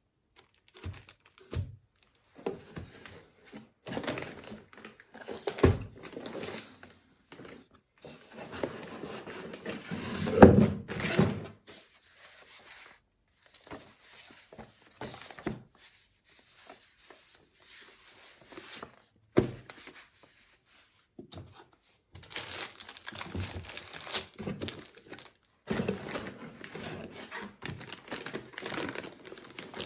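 Packaging being handled: plastic crinkling and rustling in uneven stretches, with a few sharp knocks in between.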